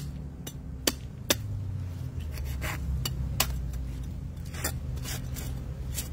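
Knife cutting mutton snapper on a wooden cutting board: irregular sharp taps of the blade on the board, with scraping as the knife saws through the fish.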